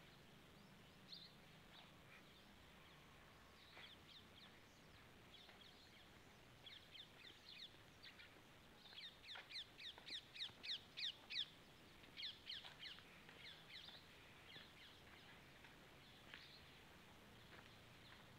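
Birds chirping faintly: scattered short, high, falling calls that thicken into a quick run of chirps about nine to twelve seconds in, over a faint low hum.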